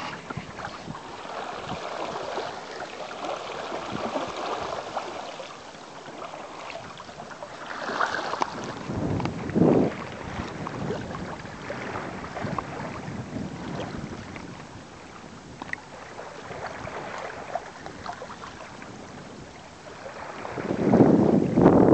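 Water washing and splashing along the hull of a sail-driven kayak, with wind buffeting the microphone. The rush comes and goes irregularly and surges louder about ten seconds in and again near the end.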